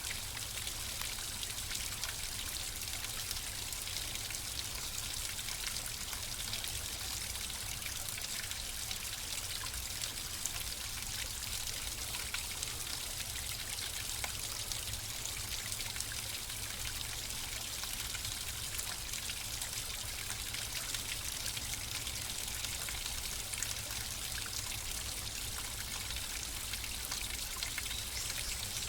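Steady flowing water: a stream or brook running, with a constant rushing hiss and fine trickling splashes throughout.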